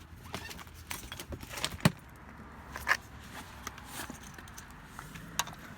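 A seatbelt being unbuckled and a cat carrier being handled: scattered clicks, knocks and rustling, the sharpest click a little under two seconds in and another about a second later.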